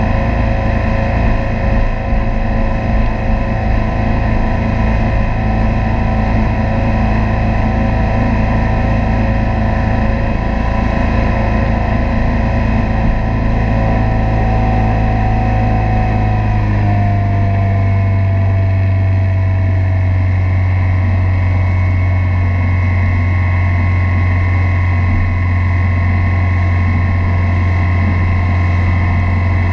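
Motorboat engine running steadily at towing speed, over the rush of water churning in its wake. About halfway through, the engine note drops slightly and its low hum grows stronger.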